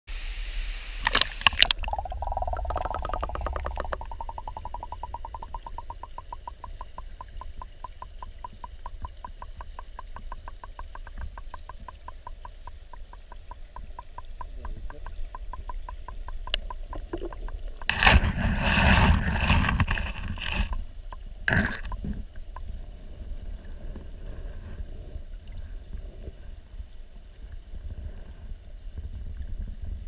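Stream water hissing, then a splash as an action camera goes under the surface of a stream pool, after which the sound turns to a muffled low underwater rumble. A fast, even run of clicks follows for several seconds. Past the middle comes a loud rush of water noise, and a shorter one a few seconds later.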